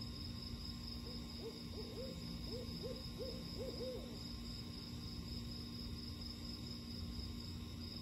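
An owl giving a quick run of about seven short hoots, starting about a second in and ending about three seconds later, over the steady trill of night insects.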